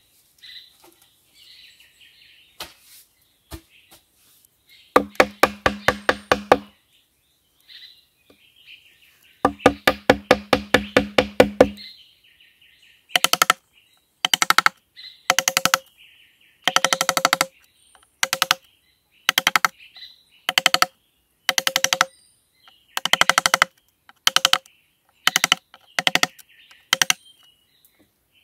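A knife chopping into a hollow green bamboo tube in bursts of rapid knocks, each burst ringing with the tube's hollow tone. After two longer bursts, shorter ones come about once a second as the blade scores and chips into the tube. Birds chirp faintly between the bursts.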